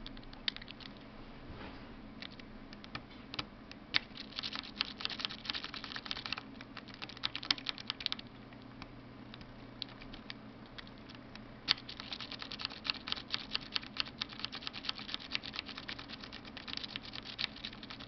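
A Bogota rake scraping back and forth through the pin tumblers of a brass padlock under very light tension, making rapid, dense runs of small metallic clicks as the pins are raked for a false set. The clicking thins out for a few seconds in the middle, then picks up again.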